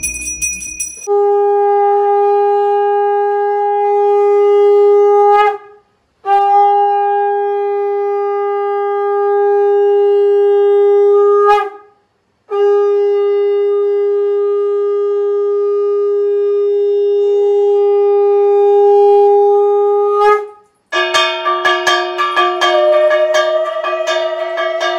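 Conch shell (shankha) blown in three long, steady blasts, the third the longest, each ending with a brief break in the note. Music with plucked strings comes in about four seconds before the end.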